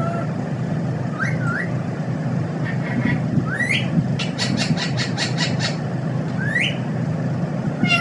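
Rose-ringed parakeet giving short, rising squeaky calls a few times, with a quick run of about eight clicking notes in the middle, over a steady low hum.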